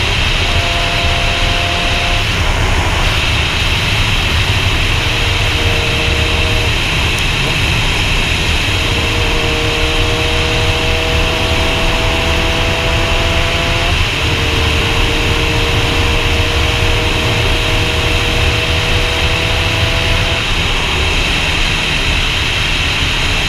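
Wind rushing over a helmet-mounted camera on a moving sportbike, under the bike's engine running. The engine's pitch climbs slowly as it pulls and steps at gear changes a few times, about two seconds in, near the middle and near the end.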